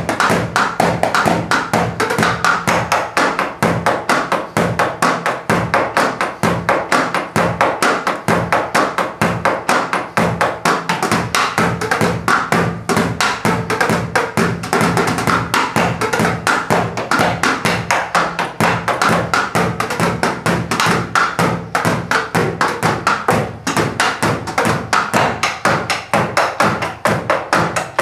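Drumsticks tapping and thudding on the rubber pads and cymbal pads of an electronic drum kit, played in a fast, even rhythm with the kick pedal thumping; only the pads' own acoustic clatter is heard, since the kit's sound goes to headphones. A steady low hum from the laser projector's cooling fan runs underneath.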